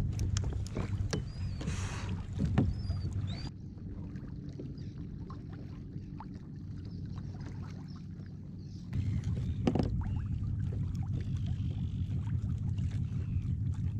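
Sit-on-top kayak afloat: a steady low rumble of water and wind against the hull, with sharp knocks and clicks of gear on the plastic hull. It drops suddenly quieter about three and a half seconds in and comes back louder about nine seconds in.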